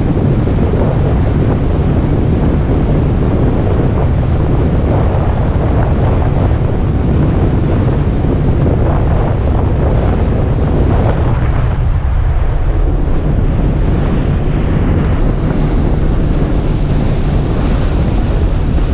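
Wind buffeting the microphone on a moving boat, with a steady low rumble and the rush of water and spray; the hiss grows brighter near the end.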